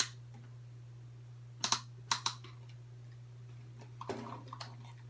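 Sharp plastic clicks and taps from cheap plastic headphones being handled and pried at: scattered single clicks, two quick pairs a little under two seconds in and a little over two seconds in, and a short scraping rustle about four seconds in, over a steady low hum.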